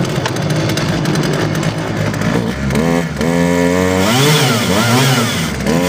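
Poulan 2075 two-stroke chainsaw just started and running, steady for a couple of seconds. It is then revved up hard and blipped up and down several times.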